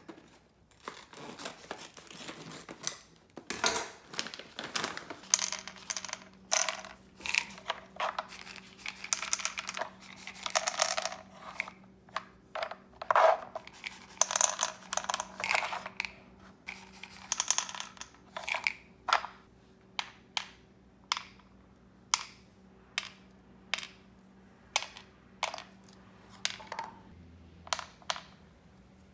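A plastic dog-food bag being torn open and crinkled. Then come rustling and rattling as dry kibble is handled, followed by a run of sharp clicks about once a second as kibble pieces and sliding parts are set into a hard plastic dog puzzle toy.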